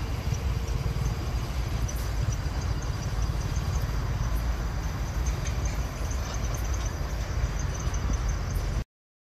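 A long freight train of empty open wagons rolling past on the rails, a steady low rumble with scattered faint clicks. It cuts off suddenly near the end.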